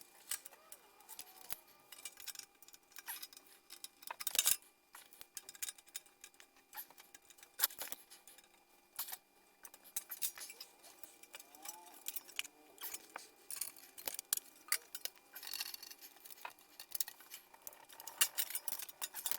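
Thin sheet metal being bent by hand around a round tube: irregular light metallic clicks and clinks, with a few louder clicks.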